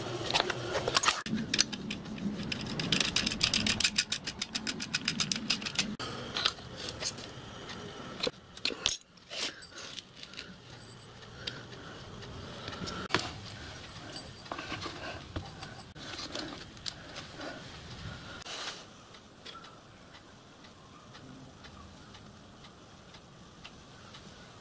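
Small metal parts and hand tools clinking and rattling on a workbench while a steel mounting bracket is fitted to an electric motor. The clicks come thick and fast for the first several seconds, then thin out to scattered knocks.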